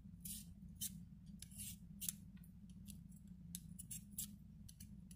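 Green Y-shaped swivel vegetable peeler scraping the skin off a raw potato in a run of about a dozen short, irregularly spaced strokes.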